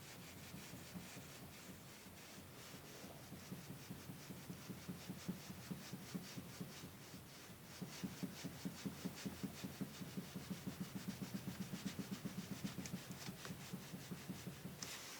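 Steering mechanism of a 2010 Skoda Octavia A5 knocking: rapid, even knocks about five a second, faint at first and louder from about halfway through. The knock is a sign of a fault in the steering.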